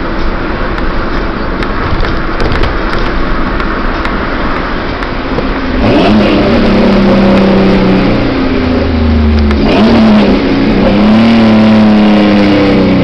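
Ford Ranger's 2.9L V6 through a Flowmaster 40 muffler, cruising steadily and then accelerating hard twice, its pitch climbing each time and dropping sharply at a gear change about ten seconds in.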